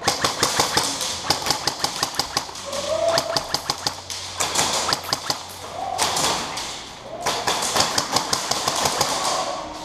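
Airsoft guns firing in rapid strings of sharp clicks, with short breaks about four and six seconds in.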